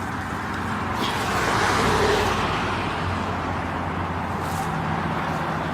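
Road traffic noise: a vehicle's passing noise swells to a peak about two seconds in and eases off, over a steady low hum.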